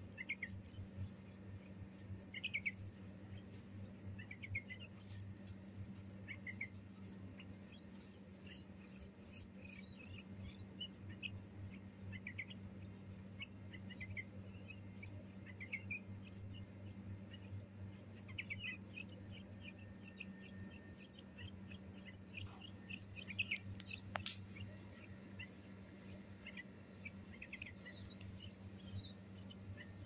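Bulbul chicks giving short, high begging chirps, scattered and irregular, as they gape for food. A low steady hum runs underneath.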